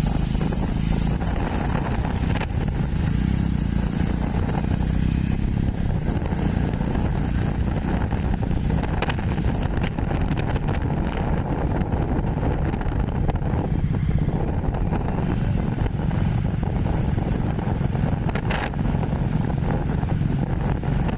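Motorcycle engine running steadily at road speed, heard from on the bike, with wind rushing over the microphone.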